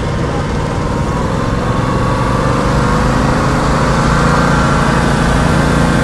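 Engine of a remote-controlled slope mower running steadily. Its pitch climbs slowly through the middle and then holds.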